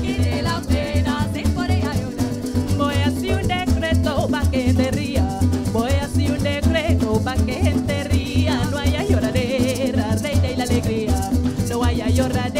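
Live parang music: acoustic guitar and cuatro strumming over a steady bass pulse, with a rattle shaking along.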